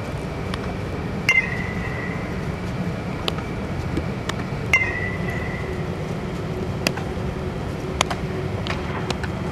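Baseball infield practice: two sharp hits with a ringing metallic ping, about a second and a half and nearly five seconds in, from a metal bat striking a baseball, and lighter pops of the ball landing in leather gloves. A steady low hum runs underneath.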